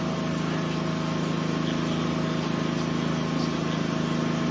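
A steady, unbroken mechanical drone, like an engine or motor running at a constant speed.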